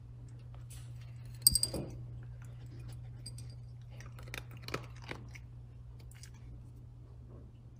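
Dry kibble clattering into a dog bowl about a second and a half in, then a small dog crunching the kibble, a few crisp bites, over a low steady hum.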